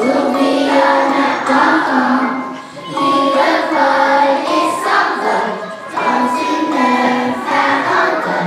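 Children's choir singing a song.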